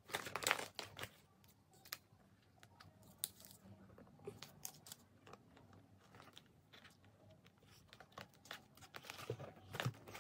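Hard plastic parts of a corner shoe rack clicking and knocking as they are handled and fitted together, in faint scattered clicks with a cluster about half a second in and another near the end.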